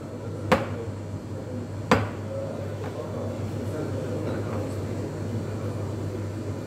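Stainless steel milk pitcher knocked twice on the counter, about half a second and two seconds in, settling the steamed milk's foam before pouring. A steady low hum of café machinery runs underneath.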